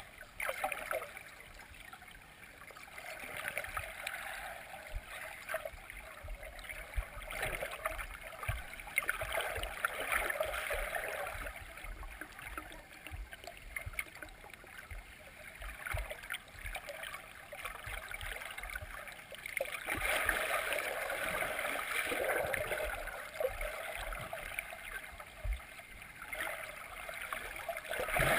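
Shallow lake water moving around a submerged camera, heard through its housing: a muffled gurgling rush that swells and fades every few seconds, with occasional low thuds.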